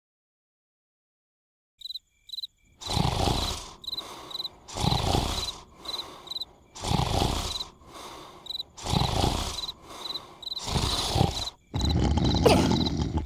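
An animated larva character snoring: a loud snore about every two seconds with a quieter breath between, starting about three seconds in, over crickets chirping steadily. Near the end the snoring runs together into one continuous louder sound.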